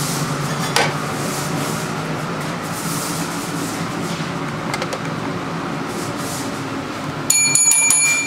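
Steady hum of a restaurant kitchen, with a couple of light clicks. About seven seconds in, a loud electronic beep starts: a steady high tone with a fluttering edge, lasting about two seconds.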